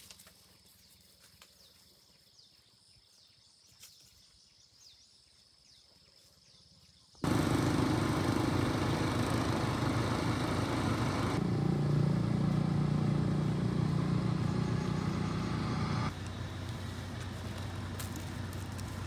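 Faint bird chirps, then about seven seconds in a loud, steady motor vehicle engine and road noise that starts abruptly and drops somewhat in level near the end.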